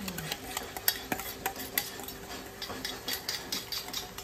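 A spoon whisking a yogurt-and-besan spice paste in a bowl, clicking against the bowl's sides in quick, irregular strokes. The curd is being beaten smooth so it won't split in the curry.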